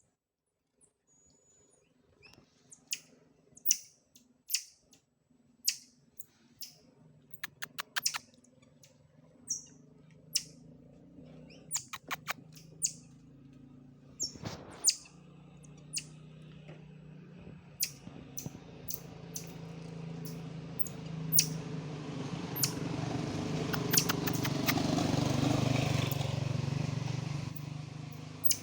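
Many short, sharp high chirps and clicks from a small animal, over a low hum that swells through the second half and drops off just at the end.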